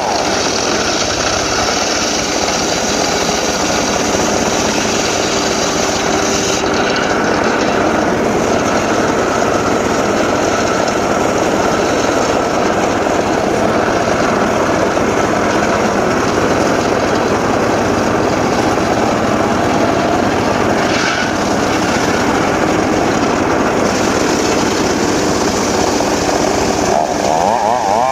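Two-stroke chainsaw running steadily under load for the whole stretch, cutting through teak wood.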